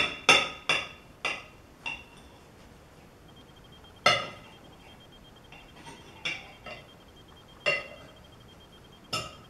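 Steel knife and fork clinking against a china serving plate as a baked omelette is cut: a quick run of about five clinks at first, then single clinks every second or two, the sharpest about four seconds in.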